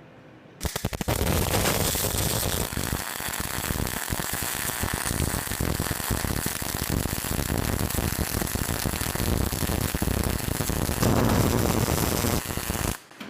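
Electric welding arc crackling as a weld bead is run on steel. The arc catches with a few stuttering starts about half a second in, holds a steady sizzle and crackle, and cuts off abruptly near the end as the bead is finished.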